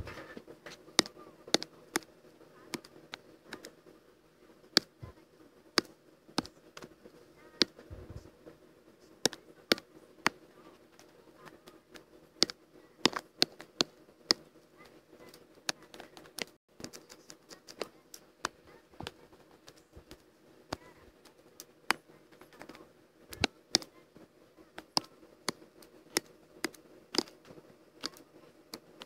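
Computer keyboard keys and clicks pressed at an irregular pace, some sharply louder than others, over a faint steady hum.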